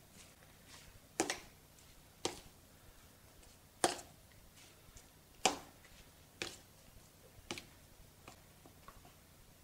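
Spoon knocking against the sides of a plastic bowl while mixing tiny raw shrimp with ground roasted rice: a series of sharp clicks about a second apart, with fainter ones between.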